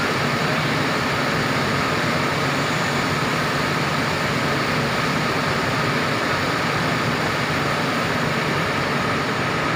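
Mercedes-Benz intercity coach's diesel engine idling: a steady, even hum and hiss that does not change.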